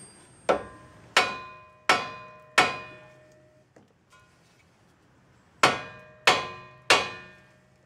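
Hammer striking the steel steering knuckle of a 2001 Ford Escape to shock the outer tie rod end's tapered stud loose. Seven ringing metal-on-metal blows fall in two runs, four and then three, each about two-thirds of a second apart, with a pause between the runs.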